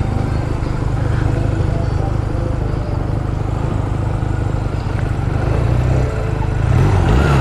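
Small Honda Rebel motorcycle engine running steadily under way, with wind rush over the microphone; near the end its note wavers up and down.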